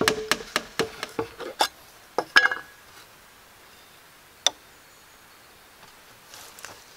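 Quick light hammer taps on wood, about three to four a second, fading out over the first second and a half as small nails are driven into a wooden window frame. Then a couple of knocks, the louder one about two and a half seconds in, and a single sharp click later on.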